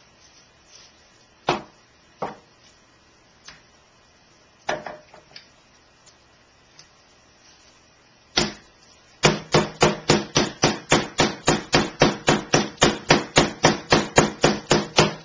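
Wooden meat mallet pounding raw chicken breasts through plastic wrap on a wooden cutting board, flattening them thinner. A few scattered blows come first. From about nine seconds in, a fast, steady pounding follows at about four to five blows a second.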